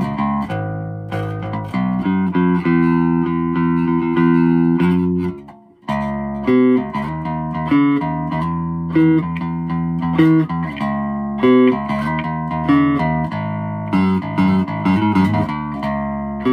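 Fernandes Jazz Bass electric bass guitar played fingerstyle, freshly fret-levelled and set up. Ringing held notes for the first five seconds, a short break, then a line with sharply plucked accents about once a second.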